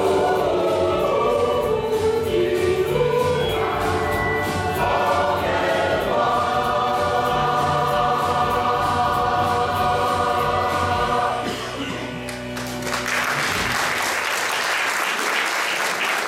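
Mixed choir singing the end of a song, closing on a long held chord that fades away about 12 seconds in. Audience applause breaks out about a second later and carries on.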